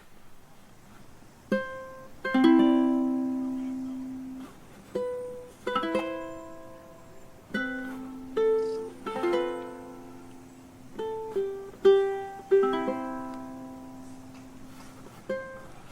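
Background music: a slow melody of single plucked string notes, each struck sharply and left to ring out, in unhurried phrases with short pauses between them.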